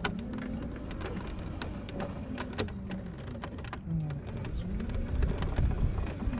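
Motorised buggy rolling over sticks and twigs on the woodland floor: a run of sharp snaps and crackles over a low rumble of wheels and motor that swells about five seconds in.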